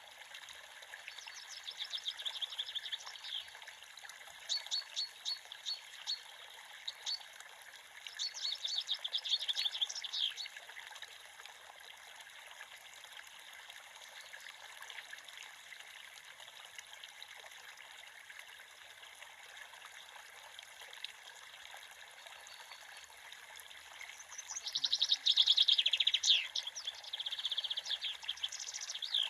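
Creek water trickling steadily, with small birds chirping in quick runs of high notes during the first ten seconds and again near the end.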